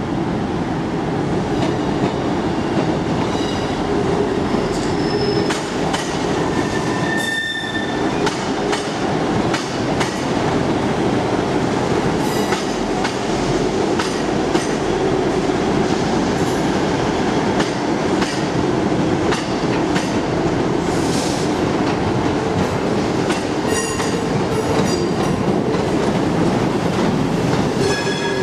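Diesel multiple unit passing at low speed, its engine running steadily, with its wheels clicking over rail joints and giving short high squeals on the curved track.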